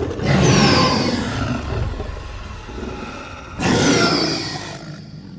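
T-rex dinosaur roar sound effect: a long, deep, rough roar that fades away, then a second roar about three and a half seconds in, also fading out.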